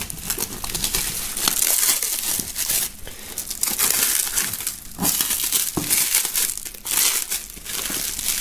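Clear plastic shrink-wrap film crinkling and tearing as hands pull it off a cardboard box, in repeated bursts with brief pauses.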